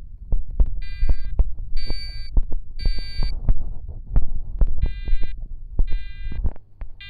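Fire alarm horn sounding the temporal-three evacuation pattern: three half-second buzzy blasts about a second apart, a pause of about a second and a half, then three more. Loud low thumps and knocks run underneath.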